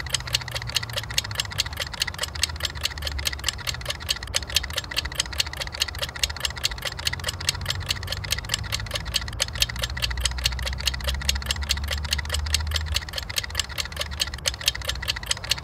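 Fast, even ticking, several ticks a second, over a low rumble.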